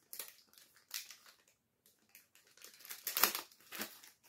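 Pokémon trading cards and their packaging being handled: a string of short rustles and crinkles, the loudest about three seconds in.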